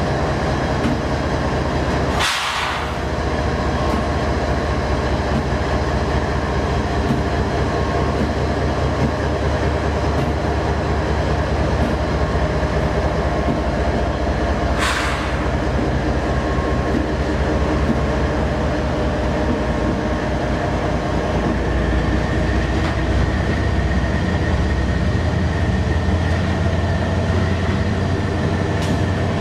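Diesel locomotives of a freight train passing slowly at close range: a Canadian Pacific GE ES44AC, then a Union Pacific SD90MAC, their engines running with a steady low rumble over the wheels on the rails. Two short noisy bursts come about 2 and 15 seconds in, and a steady high whine joins later on.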